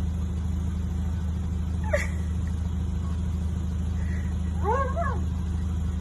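Car engine idling with a steady low hum, heard from inside the car. About two seconds in there is a brief sharp squeak, and near the end a short husky whine that rises and falls.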